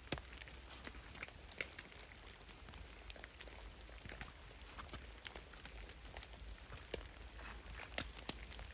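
Meltwater drops falling from melting snow in a forest, landing in irregular, scattered soft taps and plips over a faint steady hiss, a few louder drops near the end.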